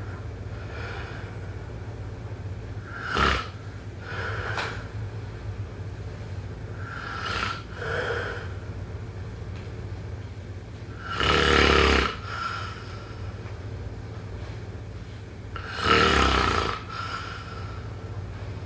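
A person snoring in sleep: four loud snores about four seconds apart, each followed by a softer breath, over a steady low hum.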